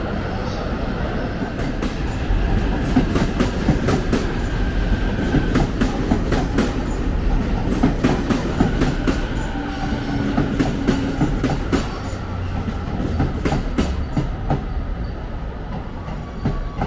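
Electric commuter train running through the station: a low rumble with a rapid run of wheel clicks over the rail joints, thinning out near the end.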